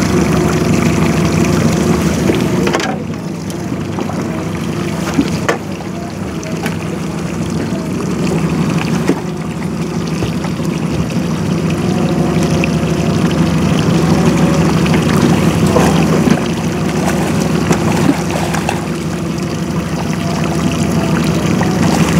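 Outboard motor running steadily at low speed, with water splashing near the end as a hooked king salmon thrashes at the surface beside the boat.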